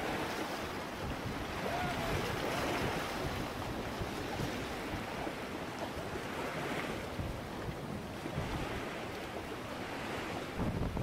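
Sea waves washing onto the shore in slow swells, with wind rumbling on the microphone.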